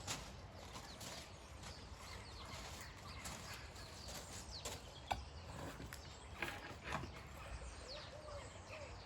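Faint outdoor ambience with birds chirping now and then, over a low steady rumble, and a few sharp knocks past the middle.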